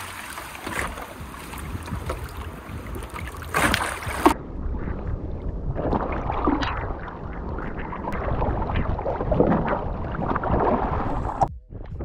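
Strong wind buffeting the microphone, with water lapping. The top of the sound falls away abruptly about four seconds in, and the sound drops out for a moment near the end.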